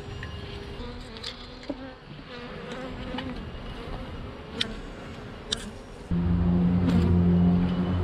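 Honeybees buzzing around an open hive, with sharp knocks and clicks of wooden frames and hive parts being handled. About six seconds in, a much louder low, steady hum starts suddenly.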